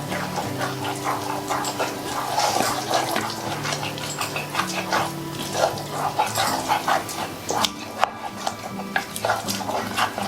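A spoon stirring a thick, pasty sourdough starter in a jar: repeated wet scraping and clicking against the jar as fresh flour and water are worked in, over background music.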